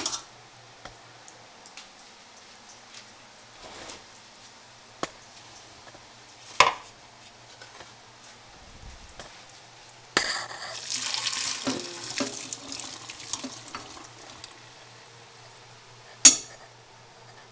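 Boiled water and parboiled potato strips poured from a pot through a wire-mesh strainer into a stainless steel sink, splashing for about four seconds. Single sharp metal clanks come before and after the pour.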